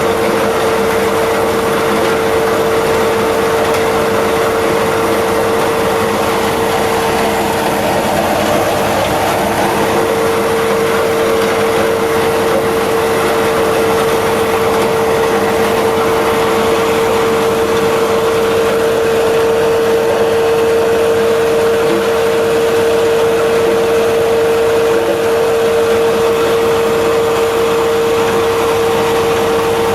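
Corn cob crusher mill running steadily, a dense rushing machine noise with one strong steady hum held throughout.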